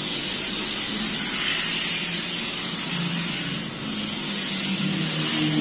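A steady hiss that eases briefly about two-thirds of the way through.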